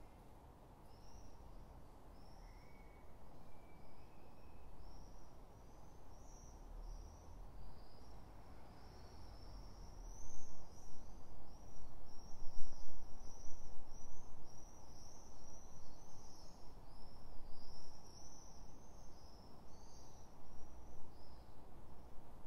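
High-pitched chirping: a long run of short, quick chirps that grows clearly louder about ten seconds in, over a low, steady room rumble.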